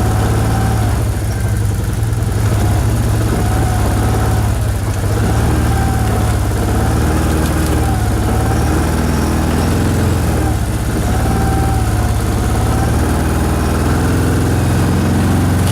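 Vehicle engine running steadily at low revs while the vehicle backs up slowly.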